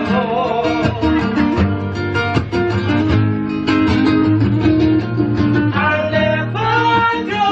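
Acoustic guitar strummed in a steady rhythm, with held bass notes under the chords.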